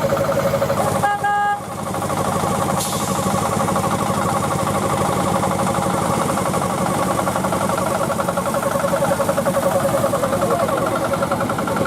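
Miniature park train's engine running with a fast, even beat, and a short horn toot about a second in.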